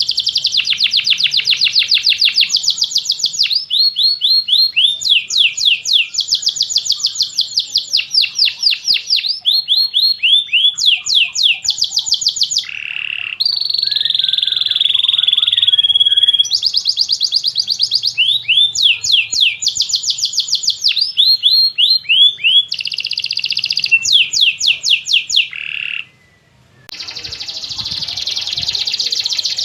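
Domestic canary singing a long song of rapid trills, each phrase a fast run of repeated high notes, switching to a new phrase every second or two. A held steady note comes midway, and the song breaks off briefly near the end before resuming.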